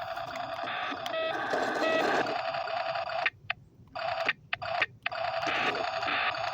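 1:16 toy RC truck's electronic sound effect from its small built-in speaker: a steady buzzing engine-style sound with two short beeps about one and two seconds in, cutting out briefly several times around the middle.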